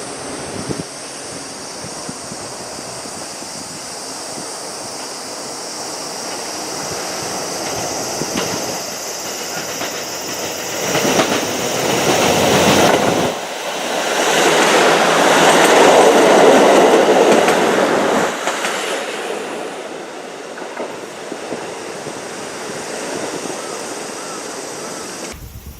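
KIYA 95 diesel track and overhead-wire measuring train passing, engine and wheels on the rails growing loud through the middle and then easing off. The sound drops away suddenly near the end.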